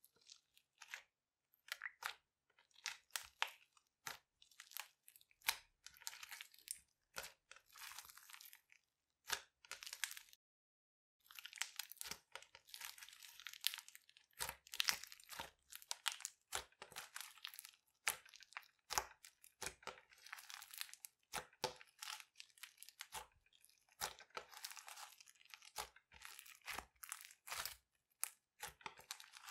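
Clear slime and soft modelling clay squeezed and kneaded by hands, giving a run of small crackles, pops and squelches, with a short pause about ten seconds in.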